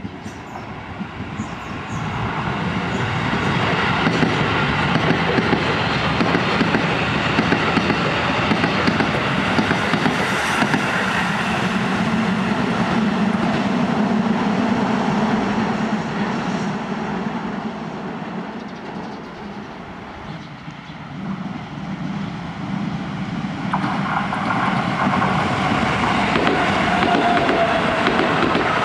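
Shin-Keisei electric commuter trains passing on the track. First an 8000-series train runs by with a loud, steady rumble of wheels on rail that fades around the middle. From about 24 s in, an 8800-series train passes close, its running noise carrying a whine that slides down in pitch near the end.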